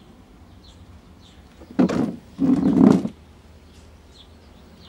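Faint bird chirps repeating in the background, broken by two short, loud, low bursts of sound about two and three seconds in.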